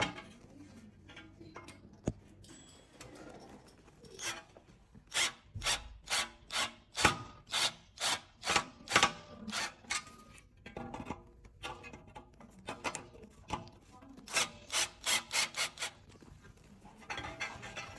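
A screw being driven into a metal panel with a screwdriver, making a rasping scrape with each turn: a long run of rapid strokes, about two or three a second, then a shorter run near the end.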